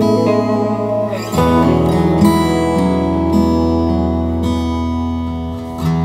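Instrumental background music with a strummed acoustic guitar; the chord changes and a deeper bass comes in about a second and a half in.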